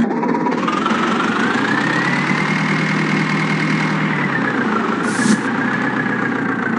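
Heavy diesel engine of earth-moving machinery running steadily, with a whine that climbs in pitch over the first two seconds, holds, then eases down a little about four seconds in. A short hiss about five seconds in.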